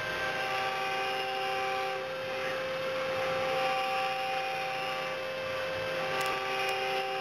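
CNC milling machine cutting block material: a steady spindle whine over cutting noise, with held tones that drop in and out every second or two as the cutter's load changes. Two short clicks come about six seconds in.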